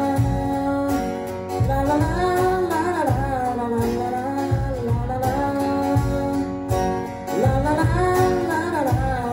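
A man singing a song, backed by an acoustic guitar and a cajón beating out a steady rhythm.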